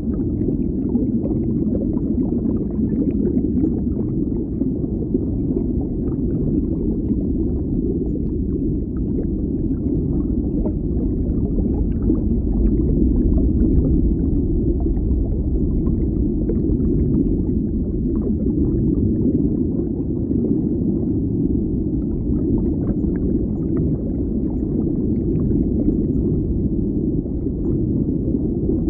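Deep underwater ambience: a steady low, muffled rumble with faint scattered crackles.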